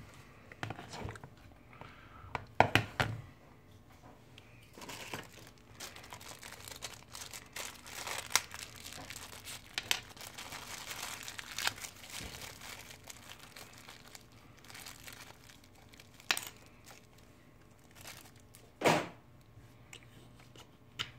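Rustling, crinkling and scattered sharp clicks and taps of small plastic parts and tools being handled during a phone teardown, with a louder stretch of rustling in the middle.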